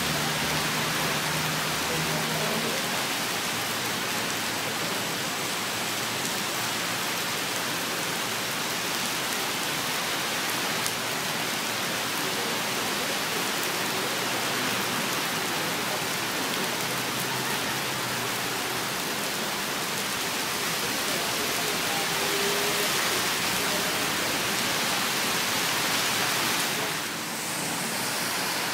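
Heavy rain pouring steadily onto a wet street, a dense even hiss. It dips briefly near the end.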